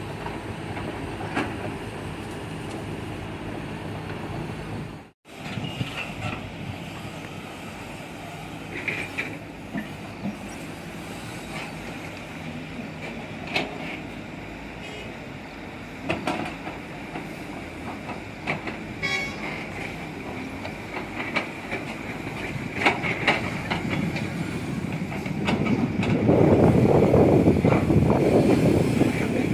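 Hydraulic excavator diesel engines running steadily, with scattered sharp metal clanks. The sound cuts out briefly about five seconds in and grows louder near the end.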